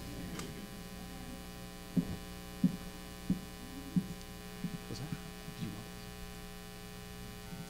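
Steady electrical mains hum through the church sound system. About two seconds in come four low thumps in a walking rhythm, roughly two-thirds of a second apart: footsteps on the platform picked up by the microphone. A few softer knocks follow.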